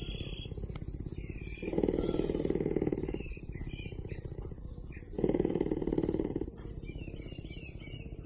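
Cougar purring, a rapid low pulsing that swells loud twice, on alternate breaths, with softer stretches between.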